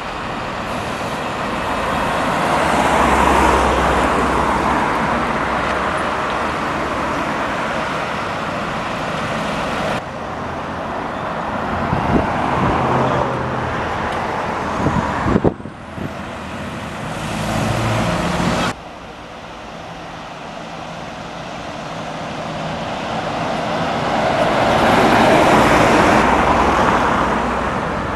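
Road traffic at a junction: single-deck buses and cars driving past, the engine and tyre noise swelling as a vehicle passes close near the start and again near the end. The sound changes abruptly a few times partway through.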